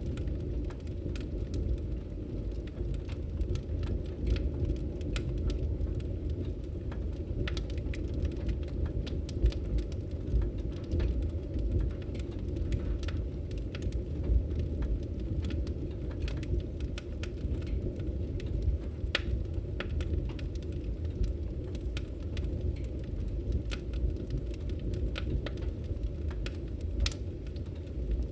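Wood fire in a fireplace crackling, with irregular sharp pops scattered over a steady low rumble.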